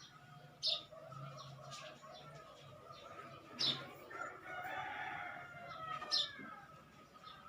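A rooster crowing once, one long call rising and then falling in the middle, with short sharp bird chirps every two to three seconds and a steady low hum underneath.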